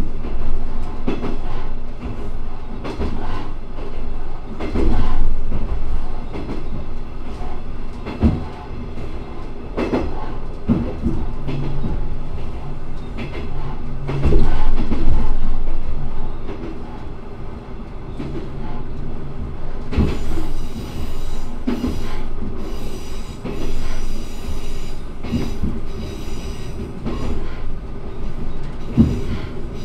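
A single-car diesel railcar running along the line, heard from inside the car: a steady engine and running hum, with sharp clacks as the wheels cross rail joints every second or two. About two-thirds of the way through, a high thin squeal from the wheels joins in.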